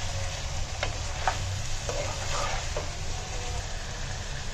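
Chicken curry sizzling in a nonstick wok as it is stirred with a steel spoon, with a few short knocks and scrapes of the spoon against the pan in the first three seconds.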